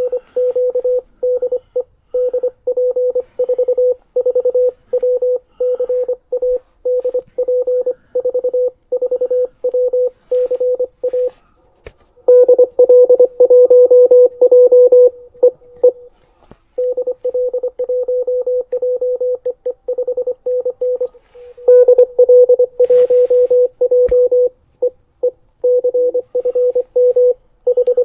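Morse code (CW) from an amateur radio transceiver: a single tone keyed on and off in dots and dashes. One stretch of keying is louder about twelve seconds in, and again from about twenty-two seconds in.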